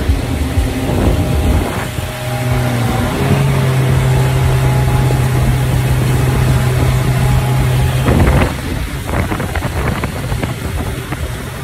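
Motorboat engine running steadily under way, with water rushing past the hull. About eight seconds in the engine's steady tone gives way to a loud rush of splashing spray.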